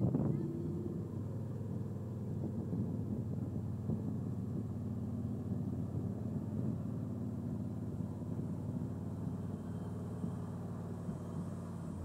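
Engine of a lifted 1972 Ford Bronco running steadily as the truck crawls slowly up a steep rock slope off-road.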